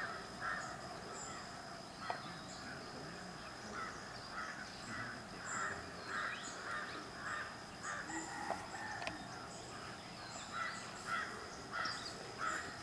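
Crows cawing over and over in quick runs, with faint high chirps of smaller birds.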